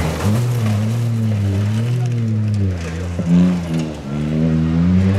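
Rally car engine working hard as the car approaches on a gravel stage, its note repeatedly rising and falling with throttle and gear changes, with a short sharp crack about three seconds in.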